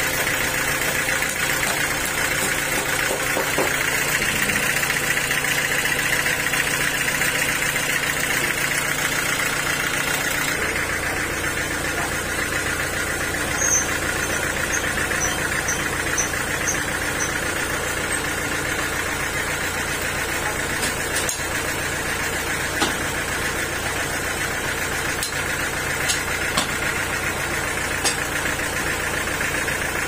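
Engine-driven band sawmill running steadily while a large log slab is fed through the blade. About ten seconds in, a deeper low hum sets in, and there are a few light ticks later.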